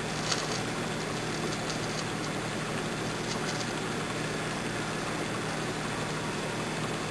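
Oxyhydrogen (HHO) torch flame hissing steadily as it burns on a thin metal rod, with a click about a third of a second in and a few faint crackles as the metal sparks; a steady low hum runs underneath.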